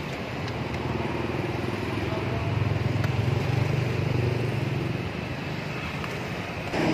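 A motor vehicle engine running with a low, steady hum that grows louder around the middle and then eases off, as of a vehicle passing close by.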